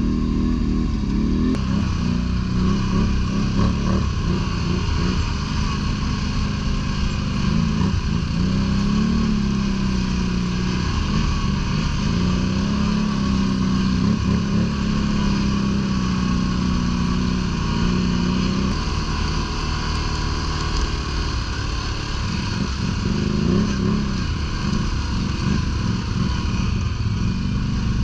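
ATV engine running under way, its revs rising and falling as it is ridden.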